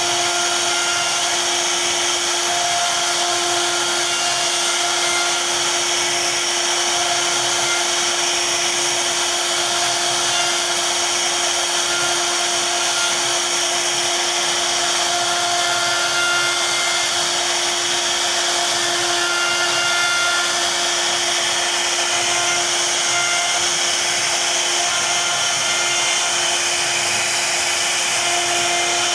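CNC router spindle running steadily with a constant whine while its bit carves a relief pattern into a wooden panel, the cutting noise mixed in.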